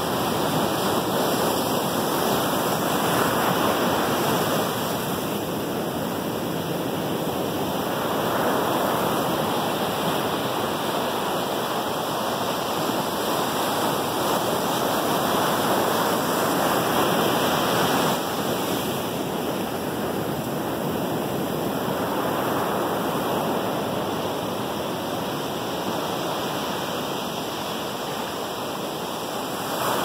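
Ocean surf breaking and washing up onto a sandy beach: a steady rush that swells and eases every few seconds as each wave comes in.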